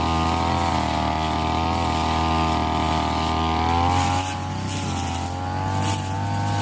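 Petrol brush cutter engine running at high speed. Its pitch and loudness dip briefly about four seconds in, then rise again.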